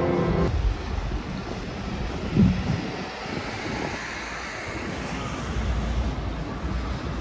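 City street ambience: road traffic passing and wind on the microphone, with a short loud thump about two and a half seconds in.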